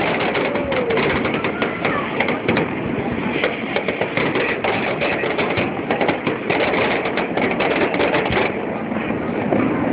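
Fireworks display: many aerial shells bursting in rapid, overlapping bangs, a dense, continuous barrage.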